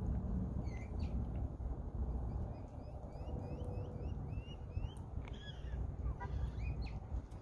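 Wind rumbling on the microphone, with a run of about ten short, rising chirps, about three or four a second, starting a couple of seconds in, and a few more chirps near the end.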